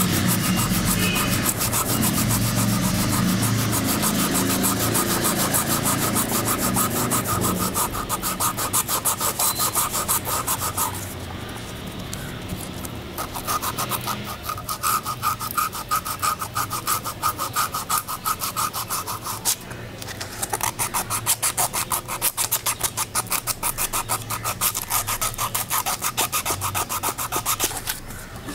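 Rusty steel blades of sewing thread snips being scrubbed with an abrasive in quick back-and-forth strokes, a dry rasping scratch that stops for a few seconds about eleven seconds in and briefly again later.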